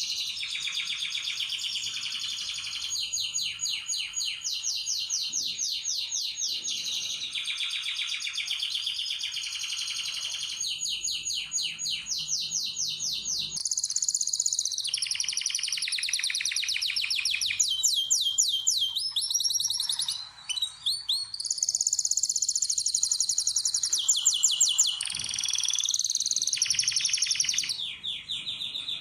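Domestic canaries singing: long, near-continuous song made of fast trills and rolls, with the pitch changing from phrase to phrase and a brief break about two-thirds of the way through.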